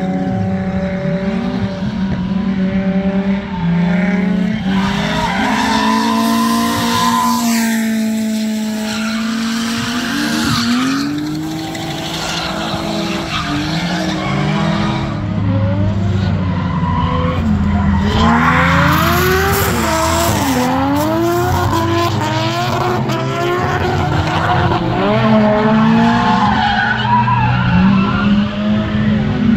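Drift car engine revving up and dropping back again and again through slides, with tyre skid noise. The revs rise and fall most rapidly about two-thirds of the way through.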